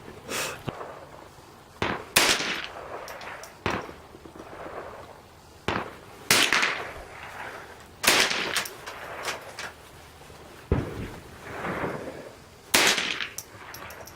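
Gunshots at a shooting range: about nine shots at irregular intervals, some much louder than others, each followed by a trailing echo.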